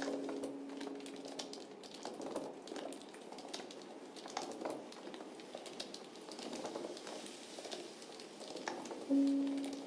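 Sparse contemporary chamber music: a plucked string note rings out and fades in the first second and a half, then several seconds of soft scattered crinkling and clicking. Another plucked note sounds about nine seconds in and rings on.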